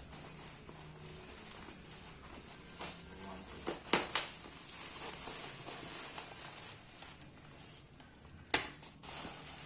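Packaging being handled and opened: crinkling and rustling, with a few sharp clicks or snaps, two close together about four seconds in and a louder one near the end.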